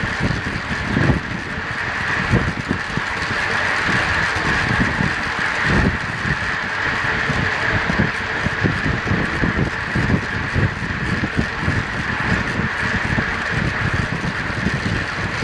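Wind rushing and buffeting over a track bike's onboard camera at about 30 mph, with the steady rolling noise of the bike's tyres and chain on the track.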